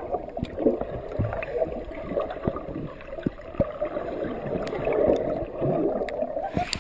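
Muffled sloshing and gurgling of moving water, with scattered knocks. The sound turns brighter and hissier just before the end.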